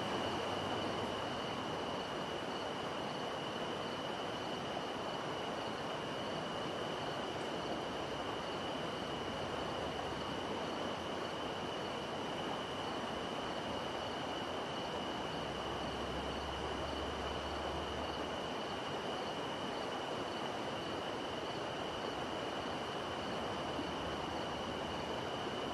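Steady outdoor night ambience: an even hiss with a constant high-pitched tone and a faint pulsing shimmer above it, and a low hum for a couple of seconds just past the middle.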